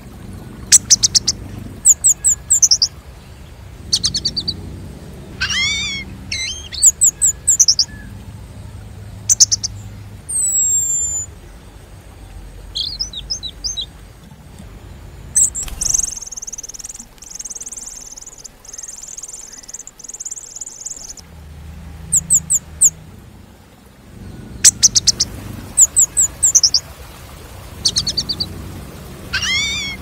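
Orange-headed thrush calling: repeated bursts of short, very high, rapid chirps and sweeping whistles, with one buzzy trill held for about five seconds midway.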